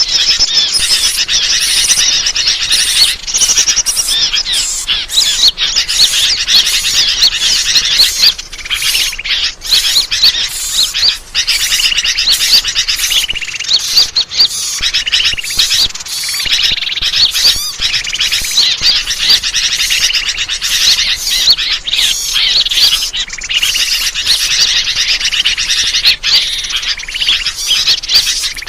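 Bird-lure playback recording: many small birds chirping and twittering in a dense, unbroken chorus of rapid high notes.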